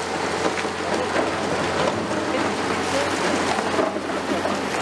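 Concrete crumbling and rubble pattering down in a continuous dense crackle as a CAT 336E excavator breaks into a concrete wall, over the steady running of the excavator's diesel engine.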